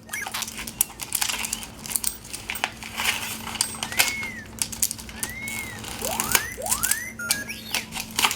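An R2-D2 kitchen timer being handled, with many quick plastic clicks and taps. Several short electronic R2-D2 whistles rise and fall, two arching ones past the middle, then quicker rising chirps toward the end, over a steady low hum.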